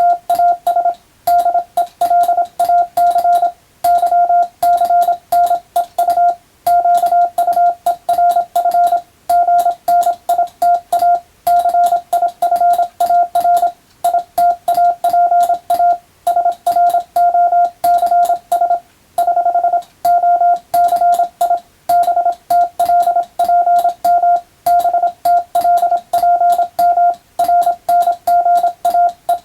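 Morse code (CW) sent on a telegraph key: a single steady tone keyed rapidly into dots and dashes, with a sharp click at each keying and short gaps between letters and words.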